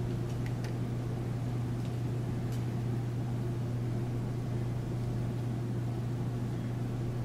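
Steady low room hum, with a few faint crackles of a small sheet of folded paper being unfolded by hand.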